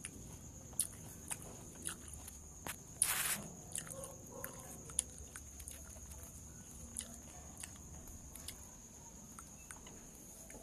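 Hand-peeling a dalandan (Philippine sour orange): scattered soft clicks of the rind, with a brief tearing rustle about three seconds in, over a faint steady hiss.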